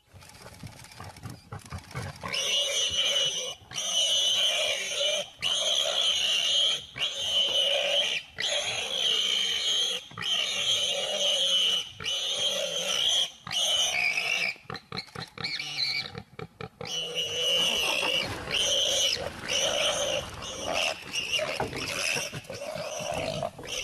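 Lions snarling and growling in a fight, in long calls one after another with short breaks between them, choppier for a few seconds midway.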